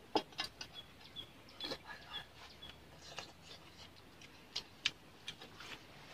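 Irregular sharp clicks and taps of small things handled in an open metal tin and on a split-bamboo floor, with a bird chirping briefly several times in the background during the first half.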